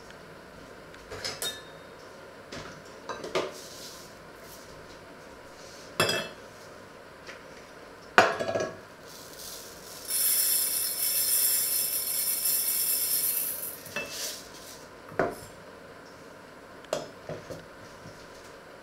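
Kitchen containers, cups and lids being handled on a wooden worktop: a handful of separate clinks and knocks. About ten seconds in, a steady high hiss runs for roughly four seconds.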